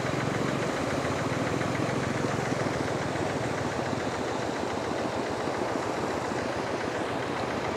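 An engine running steadily at an even speed, with a fast, regular pulsing.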